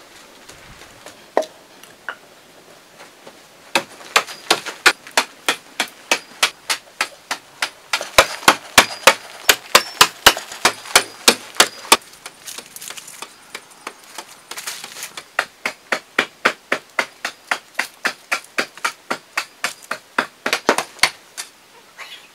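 Quick, evenly repeated blows of a hand tool, about three a second, in two long runs broken by a few seconds of lighter knocks; a couple of single knocks come first.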